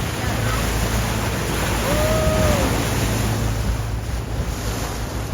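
Wind on the microphone and rushing water over the steady low drone of a dive boat's engine under way. About two seconds in, a short tone rises slightly, holds and falls away.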